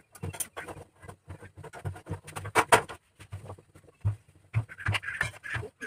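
Crows cawing, many short calls in quick, irregular succession, waiting to be fed.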